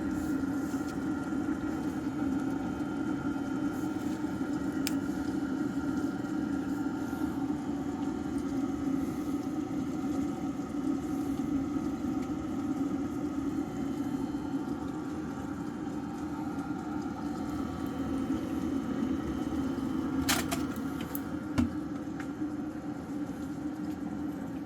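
Small electric motor running with a steady hum, with a couple of brief knocks near the end.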